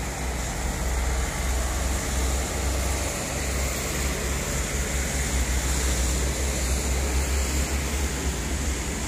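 Heavily loaded diesel trucks grinding slowly uphill, a steady low engine rumble under an even road-noise hiss.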